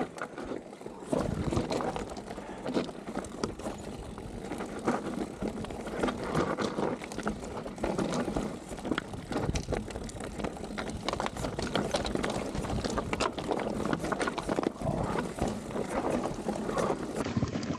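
Mountain bike rattling down a rocky trail: tyres crunching over loose stones and rock, with a constant clatter of small knocks from the bike over the rough ground.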